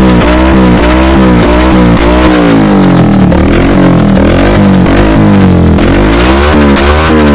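Bajaj Pulsar 150's single-cylinder engine breathing through a loud aftermarket SC Project-style exhaust, revved in quick repeated throttle blips, about two a second.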